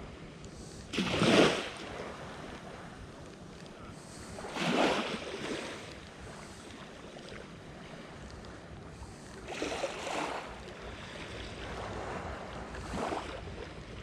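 Small waves washing on the shore in four separate surges, the first, about a second in, the loudest, over a steady background of wind.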